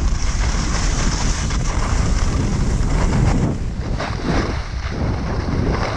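Wind rushing over the camera microphone of a skier moving downhill, a steady low rumble mixed with the hiss of skis sliding on packed snow.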